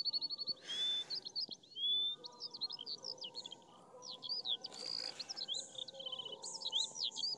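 A songbird chirping over and over: high whistled notes, quick up-and-down sweeps and short rapid trills, in a repeating pattern.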